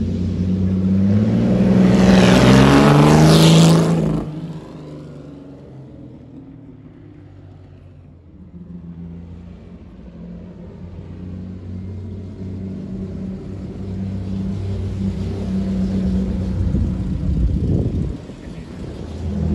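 1956 Jaguar D-Type's twin-cam straight-six engine accelerating hard past, its pitch climbing, then cutting off suddenly about four seconds in as the throttle lifts. The engine is fainter for a few seconds, then builds again as the car comes back round, with a brief drop near the end.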